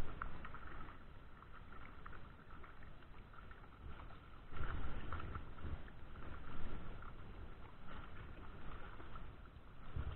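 Water splashing and sloshing as a hooked trout thrashes at the surface in the shallows, in uneven surges with stronger splashes about four and a half and six and a half seconds in. A sharp knock sounds right at the start.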